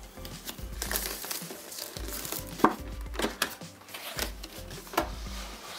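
Unboxing handling: a knife slitting the seal of a cardboard product box, with crinkling and tearing of the wrap, then the box's printed cardboard sleeve being slid off. A few sharp clicks and scrapes of cardboard stand out.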